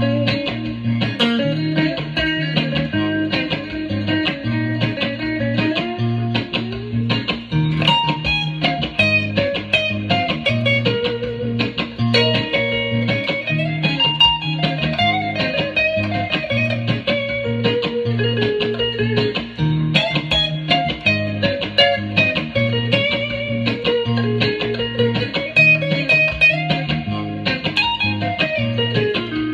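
Instrumental band music led by guitar: an electric guitar melody that slides between notes over a steady, repeating bass line.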